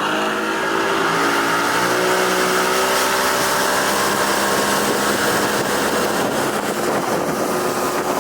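Boat outboard motor throttling up, its pitch rising over the first few seconds and then holding steady as the boat runs under way, with a rush of water and wind.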